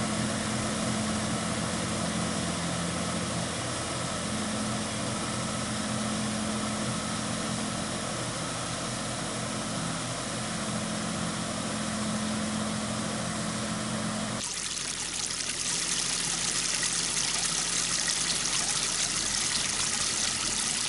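Yanmar EG225 tractor's diesel engine running steadily while it pulls a harrow through a flooded rice paddy, puddling it. About fourteen seconds in, the sound cuts abruptly to water pouring and splashing into the paddy from an inlet, a steady bright hiss.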